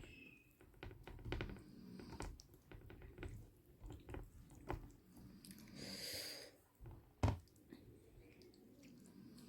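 A person chewing a mouthful of rice and curry, with soft wet mouth sounds and irregular small clicks. A brief breathy noise comes about six seconds in, and a single sharp knock just after seven seconds.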